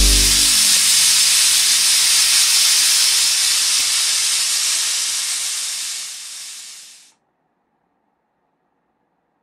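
Steam hissing out of a pressure cooker's weight valve in a steady, even hiss that thins over its last second or so and cuts off about seven seconds in.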